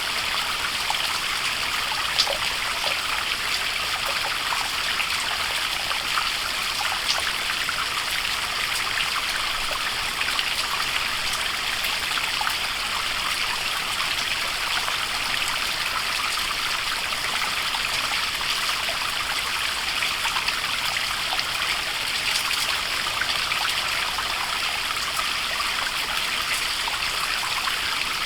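Waterfall: an even, unbroken rush of falling water, with little sharp splashes scattered through it.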